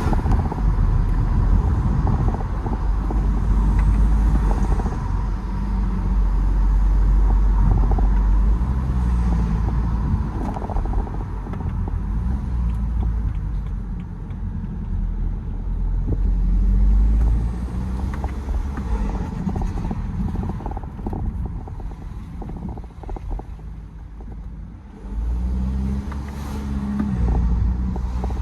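BMW 320d's N47 four-cylinder turbodiesel breathing through an open air intake, its revs climbing and falling again several times. A quieter stretch near the end holds a rapid fluttering chatter from the turbo as the throttle is lifted.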